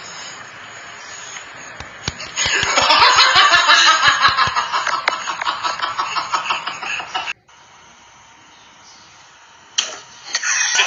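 Laughter: a loud run of quick ha-ha pulses lasting about five seconds, which cuts off abruptly.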